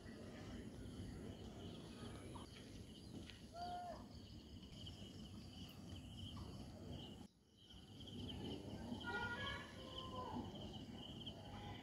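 Faint dusk outdoor ambience: insects chirring in a steady high, pulsing drone over a low rumble, with a short bird call a few seconds in and a few more faint calls later. The sound drops out briefly a little past halfway, then returns.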